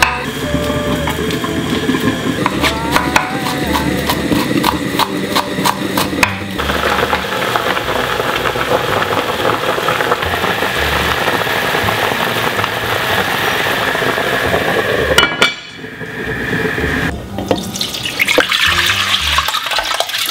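A kitchen knife slices button mushrooms on a wooden cutting board in quick, crisp taps. Then braised beef short ribs (galbi-jjim) simmer with a steady bubbling hiss in an open cast-iron pot. Near the end, washed rice grains pour into a clay pot with a rising rush.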